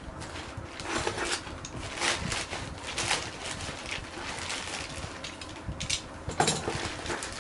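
Plastic courier mailer bag crinkling and rustling in irregular bursts as hands pull it open around the cardboard box inside.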